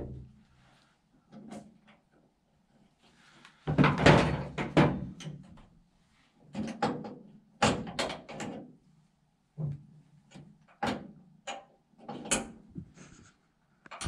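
Metal clunks, scrapes and clicks of a door stop arm being worked through the slot in a 1952 Ford F1 truck door and lined up for its pin. A louder rattling clatter comes about four seconds in, then a string of sharp knocks.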